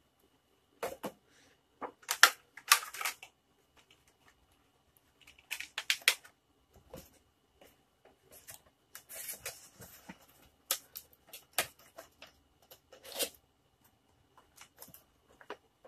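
Clear plastic packaging insert crinkling and a cardboard box being handled, in irregular bursts of rustling with small clicks and taps.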